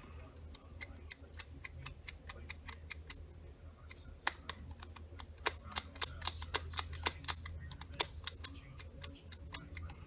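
Fender Mustang pickup slide switches clicking as they are flicked back and forth by hand to work freshly sprayed cleaner into them; these switches had not been working right. The clicks come irregularly, several a second, more of them and louder after about four seconds, over a steady low hum.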